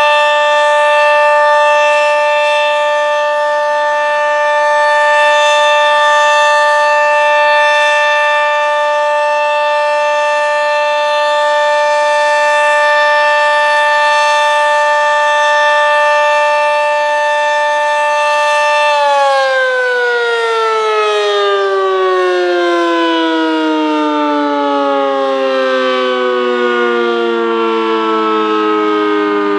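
Sentry 40V2T dual-tone outdoor warning siren sounding a steady full-alert chord of two tones. Its loudness swells and fades slowly. About nineteen seconds in, the siren shuts off and winds down, its pitch sliding steadily lower.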